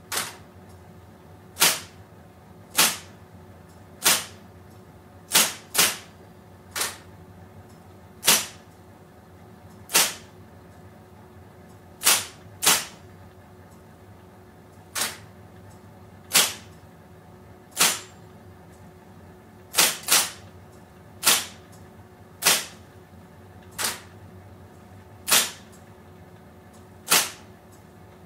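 Electric typewriter typed slowly with one finger: single sharp key strikes about every one to two seconds, unevenly spaced, some two in quick succession, over the steady hum of the machine's running motor.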